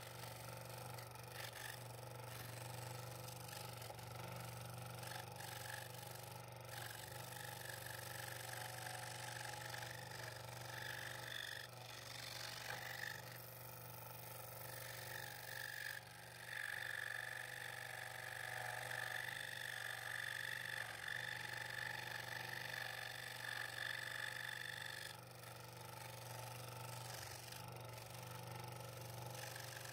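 Scroll saw running, its blade cutting through a double-stacked wooden blank, with a steady low hum. A higher whine grows louder past the middle and eases a few seconds before the end.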